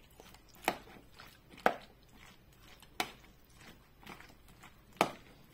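A metal spoon stirring potato salad in a plastic bowl: soft mixing between four sharp knocks of the spoon against the bowl, roughly a second or more apart.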